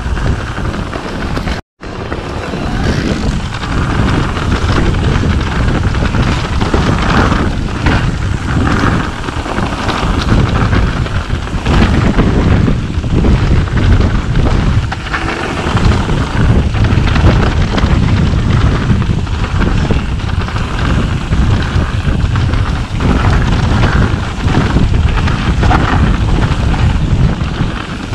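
Wind rushing over the camera microphone, with the rumble and rattle of a mountain bike rolling fast down a dirt trail. The sound drops out completely for a moment about two seconds in.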